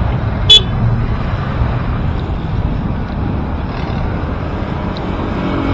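Wind buffeting a headband-mounted action camera's microphone while cycling along a road: a steady low rumble. About half a second in comes one sharp, brief, ringing clink, the loudest sound.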